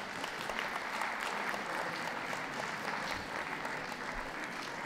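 Audience applauding steadily for a dog just called out in the show ring.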